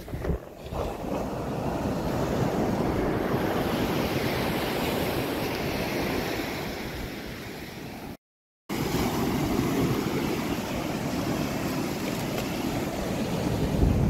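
Ocean surf breaking and washing up a sandy beach, with wind buffeting the microphone. The sound cuts out completely for about half a second a little past halfway.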